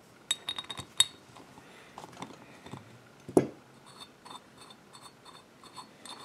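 Small metal parts of a Walbro WF-7 carburetor's float bowl being handled: scattered light clicks and clinks, a dull knock about three and a half seconds in, then light ticking about three times a second, after the jet limiting plug has been taken out with a small ratchet.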